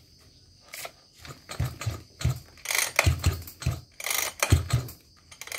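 Recoil starter of a Maruyama BC32A 32cc two-stroke brush cutter being pulled several times, the cord rasping and the starter pawls ratcheting as the primed, choked cold engine turns over without firing yet.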